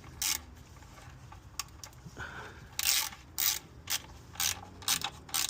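A series of irregular short mechanical clicks and rattles, about six in all and loudest around the middle, from hard parts being handled at the engine.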